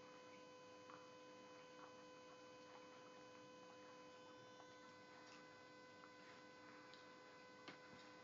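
Near silence: a faint, steady electrical hum with several even tones, with faint scattered ticks and one slightly louder click near the end.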